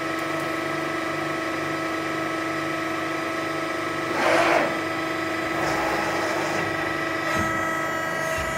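CNC press brake running with a steady mechanical hum made of several fixed tones, under a faint low pulsing about twice a second. About four seconds in there is a brief louder rush of noise, followed by a couple of small knocks near the end.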